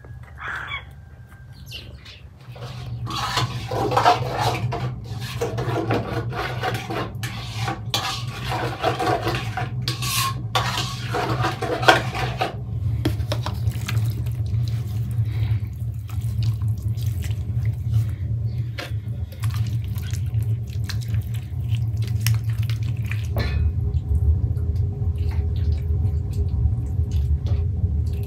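Wet squelching and scraping as a thick spice marinade is worked in an enamel bowl, with clinks of a spoon against the bowl, then quieter squishing as hands rub the marinade into raw chicken. A steady low hum runs underneath.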